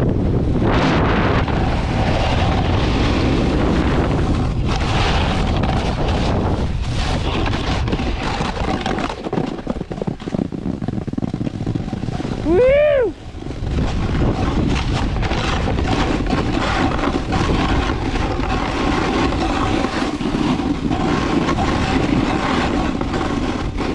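Wind rushing over the microphone of a snowboarder's action camera, along with the snowboard scraping over firm groomed snow during a run. About halfway through there is a brief squeal that rises and falls in pitch.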